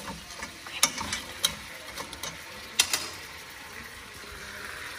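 Metal tongs and hard crab-leg shells clicking and knocking against a stainless steel pot as snow crab legs are settled in. About five sharp clicks come in the first three seconds, over a faint steady hiss.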